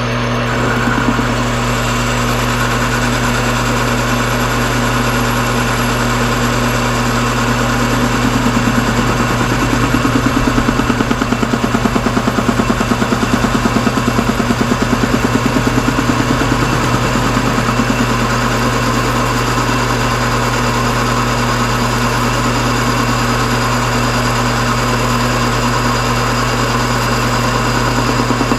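Metal lathe running steadily while a carbide boring tool cuts the inner bore of a part. The cutting adds a fast rhythmic pulsing that is louder through the middle stretch.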